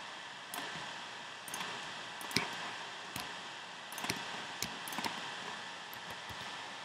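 Irregular clicking from computer mouse and keyboard use, about eight separate clicks with the sharpest a little over two seconds in, over a steady background hiss.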